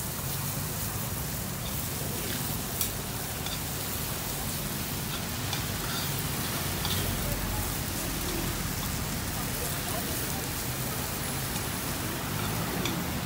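A burger patty and sliced onions frying in oil in a pan, a steady sizzle blended with the hiss of falling rain. A few light clicks of tongs against the pan.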